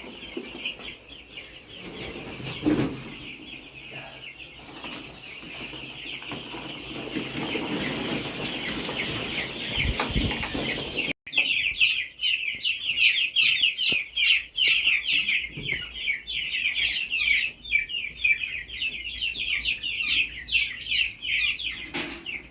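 A crowd of young chicks peeping continuously, many high calls overlapping. About halfway through it cuts out for an instant and comes back louder.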